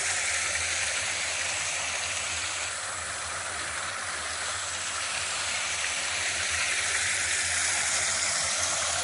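Creek water running into a small pool: a steady, even hiss.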